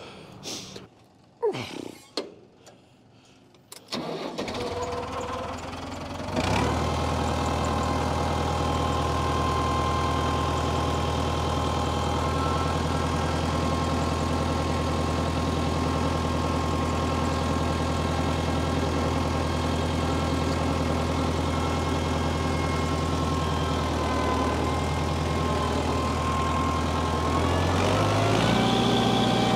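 A tractor engine is started: it cranks for a couple of seconds, catches about six seconds in, and settles into a steady idle. Near the end it speeds up to a higher, steady speed.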